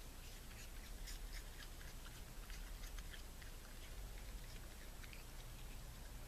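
Raccoon munching, a run of quick, irregular little crunches.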